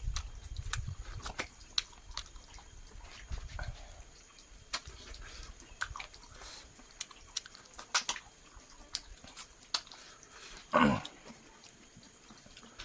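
Close-miked eating of chicken: scattered wet mouth clicks, lip smacks and chewing. About eleven seconds in comes one short, loud vocal sound that drops in pitch.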